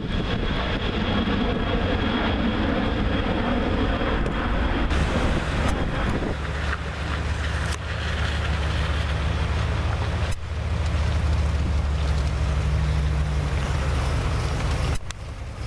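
Jet airliner engines at takeoff power: first a Boeing 767 climbing away, then, after a cut about five seconds in, a McDonnell Douglas MD-80's rear-mounted Pratt & Whitney JT8D engines giving a loud, deep, steady rumble on its takeoff roll down a wet runway.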